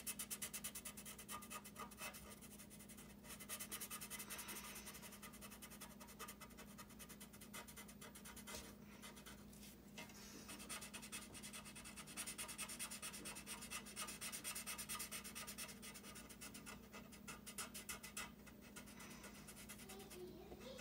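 Black felt-tip marker scratching rapidly back and forth on paper, in stretches with short pauses between them.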